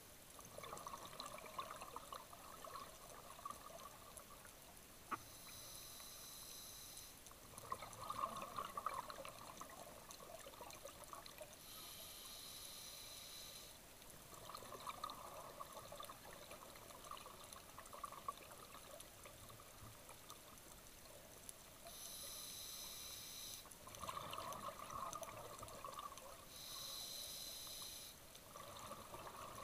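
Scuba diver breathing through a regulator underwater, a breath every six or seven seconds. Each breath is a short hissing inhalation, followed by a few seconds of bubbling as the exhaled air escapes from the regulator.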